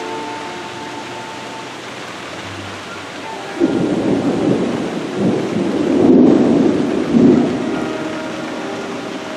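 Steady rain in a thunderstorm, broken about three and a half seconds in by a sudden rolling rumble of thunder that swells for some four seconds and then fades back under the rain.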